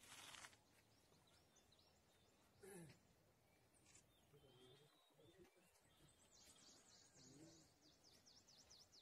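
Near silence: faint outdoor ambience with distant voices, a short rustle near the start and again about three seconds in, and a bird's quick repeated high chirps in the last two to three seconds.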